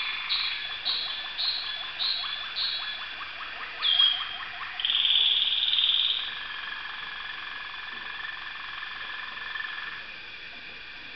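Waterslager canary song. Repeated high notes come about twice a second over a fast rattling trill. About five seconds in comes a loud, high, rapid trill, followed by a long, lower rolled note that stops near the end.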